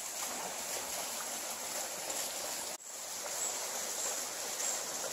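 Steady rushing hiss of running water from a stream, briefly cut off about three seconds in.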